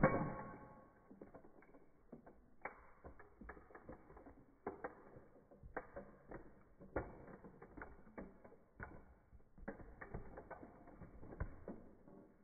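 A model Porsche 911 toy car being crushed under a high heel: a loud crunch at the start, then a string of sharp creaks and cracks as the body gives way, stopping shortly before the end.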